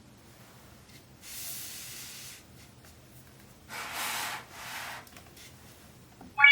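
Paper or card rustling as a children's board book is handled and its pages turned: three short swishes, the first about a second in. A bright electronic chime starts abruptly right at the end.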